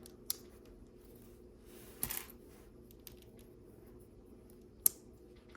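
Plastic LEGO pieces clicking and rattling as they are handled and fitted together: a sharp click about a third of a second in, a short rattle around two seconds, and another sharp click near the end, over a faint steady hum.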